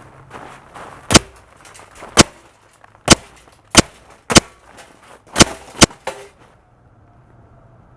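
A series of about seven sharp, cracking impacts, irregularly spaced about half a second to a second apart, followed by a quieter stretch near the end.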